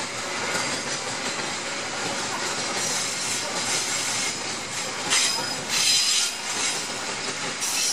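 Loaded container wagons of a freight train rolling past, a steady rumble and rattle of steel wheels on the rails. There are two brief high-pitched wheel squeals, about five and six seconds in.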